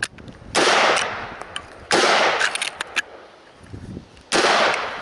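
Three gunshots, the second about a second and a half after the first and the third over two seconds later, each dying away over about a second.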